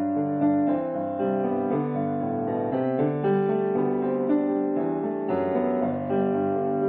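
Background piano music: a melody of held notes changing about every half second over sustained chords.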